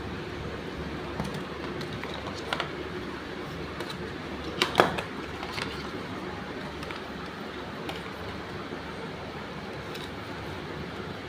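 Light clicks and taps of a phone box and its cardboard tray being handled, the loudest a pair of clicks a little under five seconds in, over a steady background hiss.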